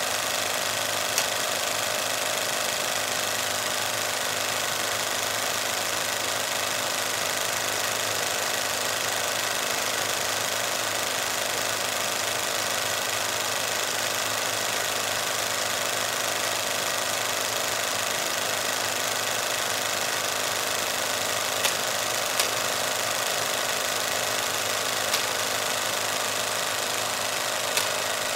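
16 mm film projector running with a reel threaded, giving a steady mechanical clatter over a motor hum. A few sharper clicks stand out now and then, most of them near the end.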